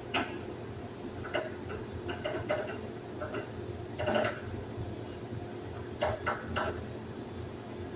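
Irregular short clicks and taps, some in quick little clusters, over a steady low hum.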